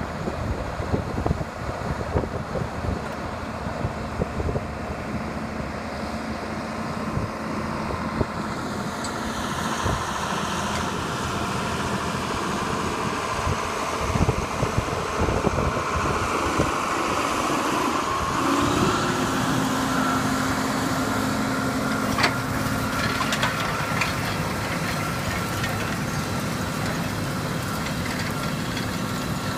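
John Deere four-wheel-drive tractor engine running steadily as it pulls an AerWay aerator and harrow with rolling baskets across pasture. The engine tone rises and then holds steady a little past halfway.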